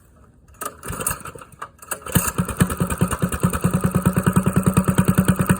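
Engine being cranked for about a second and a half, catching about two seconds in and settling into a steady, evenly pulsing idle through a newly fitted larger-diameter exhaust pipe, with a hollow tone.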